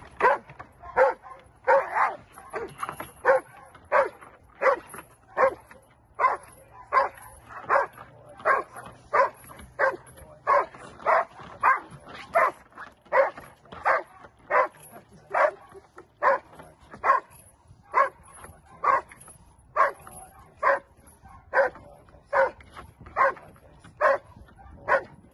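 Dobermann barking again and again at a decoy during protection work, a steady train of short, sharp barks at about three every two seconds.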